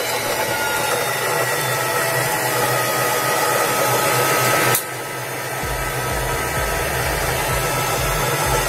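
Usha Janome Allure electric sewing machine motor running at steady speed to wind the bobbin, with the hand wheel pulled out so the needle stays still. A sharp click about five seconds in, after which a low hum joins the whir.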